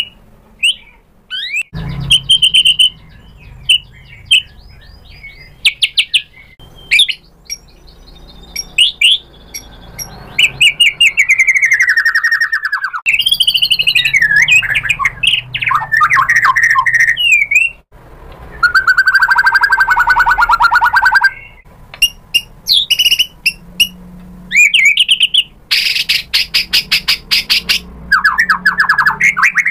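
White-rumped shama (murai batu) in full song: a long, varied run of loud whistles, sliding notes and rapid chattering trills, with a drawn-out buzzy note about twenty seconds in and a fast rattle near the end.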